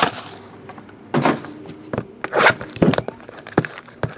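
Hands handling a trading-card box and its foil-wrapped pack on a table: a string of irregular knocks, rubs and rustles about a second apart.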